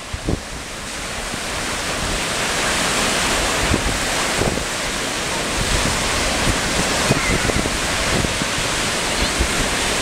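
Sea surf on a rough sea, waves breaking and washing up over the sand, growing louder over the first two seconds and then steady. Wind buffets the microphone in low thumps.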